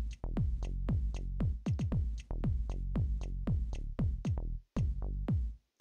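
Electronic background music with a fast, steady beat of downward-sweeping bass notes, dropping out briefly twice near the end.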